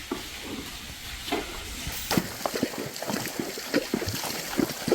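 Irregular wet steps splashing and squelching through mud, growing more frequent from about a second in.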